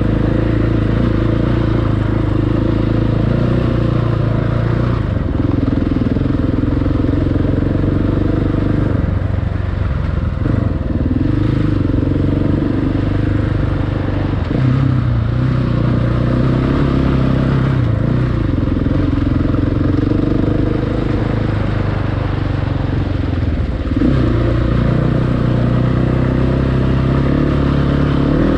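690 enduro motorcycle's single-cylinder engine running on a trail ride. The rider eases off and opens the throttle again several times, the engine note dropping and rising.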